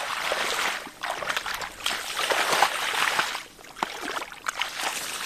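Bare feet wading through shallow water over muddy grass, sloshing and splashing in uneven surges with each step, briefly quieter about three and a half seconds in.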